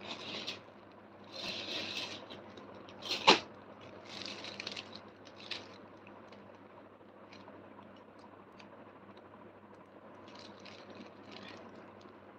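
Off-microphone handling noise: a few short rustles and scrapes in the first five seconds, one sharp click about three seconds in, then scattered faint ticks over a low steady hum.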